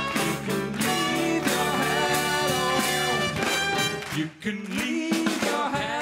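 Live band music: an upbeat funk number played by a small house band with saxophone, trumpet, keyboard, guitar and drums, a melody line riding over a steady beat. The bass and drums drop away for a moment a little past the middle, then return.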